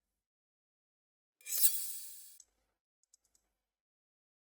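A short, bright sound effect played back from an editing app's sound library, swelling quickly and fading out over about a second, with a couple of faint clicks a little later.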